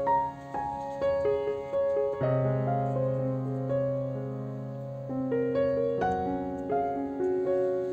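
Background piano music: a slow melody of single notes over held low chords.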